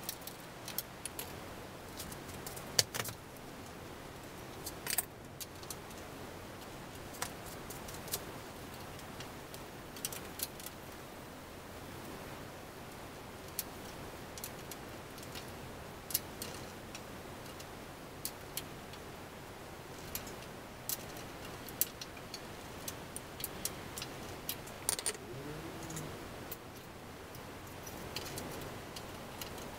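Small metal parts clicking and clinking as hands work on a bicycle's rear axle and brake fittings: irregular light clicks every second or so, with a handful of sharper ones.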